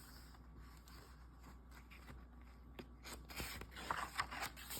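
Quiet room tone, then about three seconds in a few soft rustles and light clicks of a paper picture book being handled.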